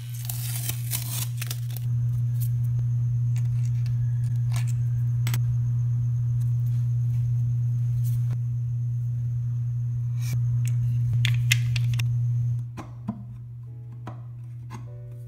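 A small electric motor running steadily with a low, even hum and scattered clicks and scrapes, cutting off about twelve and a half seconds in; background music follows.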